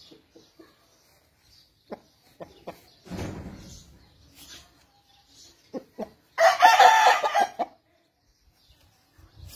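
Aseel rooster crowing once, a short, rough crow of just over a second about two-thirds of the way in, with a few faint knocks and a brief low rumble before it.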